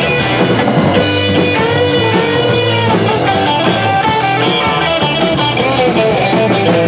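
Live rock band playing: an electric guitar carries a melody line of changing notes over a drum kit.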